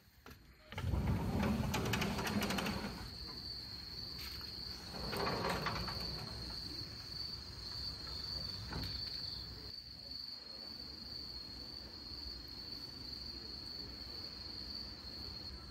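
A steady, high-pitched insect trill. Louder rushes of noise come about one to three seconds in and again around five seconds in.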